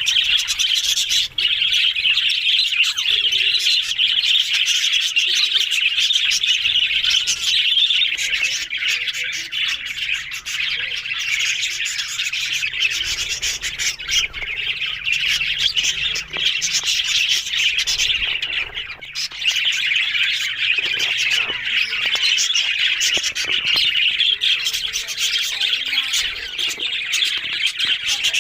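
Budgerigars chattering and squawking without a break, a dense high-pitched warble full of short clicks and chirps that eases for a moment around the middle.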